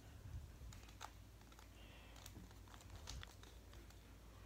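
Faint, irregular plastic clicks of a stickerless barrel cube, a cylinder-shaped 3x3 twisty puzzle, as its layers are turned by hand.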